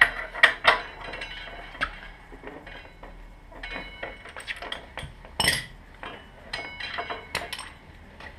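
Hand tools clinking and clicking against the motorcycle's front axle and brake caliper fittings as the front wheel is worked on. The clicks are irregular, the loudest a sharp metallic clank about five and a half seconds in.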